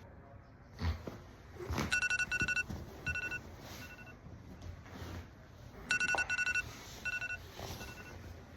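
Electronic ringing tone with two pitches sounding together in a fast pulsing trill, heard twice in the same pattern: one longer trill followed by two short ones. A couple of dull thumps and rustles come just before the first ring.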